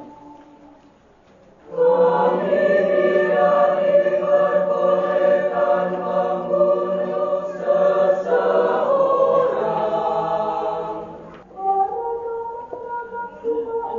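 Mixed choir singing a short sustained sung phrase of the Good Friday Passion in several parts, coming in about two seconds in and stopping about eleven seconds in. A solo female voice then takes up the chant.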